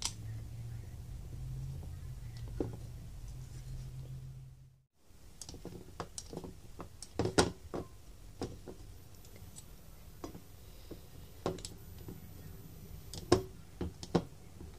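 Small metal cutter tapping and clicking against a plate as it is pressed down through soft pitha dough, in scattered sharp ticks. A low steady hum runs for the first few seconds and stops suddenly before the clicking starts.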